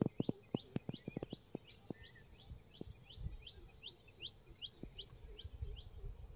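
A bird repeats a short rising chirp about two to three times a second. A few sharp low clicks sound in the first second and a half, over a faint steady high hum.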